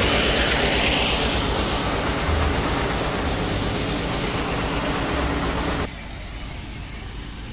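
Engine running steadily with a low throb under a broad rushing noise. The level drops off sharply about six seconds in.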